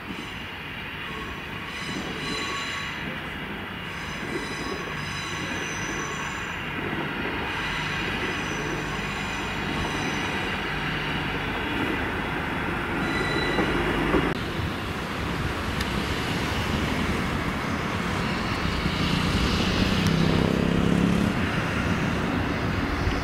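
Steam locomotive 45690 Leander, an LMS Jubilee-class three-cylinder 4-6-0, with its train: a steady steam hiss with thin high squealing tones through the first half, then a louder rush of steam near the end.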